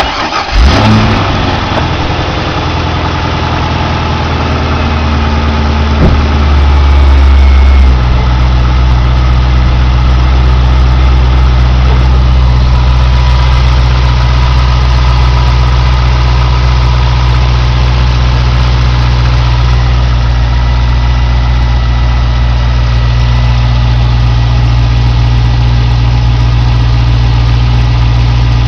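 2002 Corvette Z06's LS6 V8 engine firing up and idling. Its speed eases down over the first several seconds, then changes abruptly about eight seconds in to a steady idle. The idle carries a tick that the owner cannot place between an exhaust leak and lifter tick.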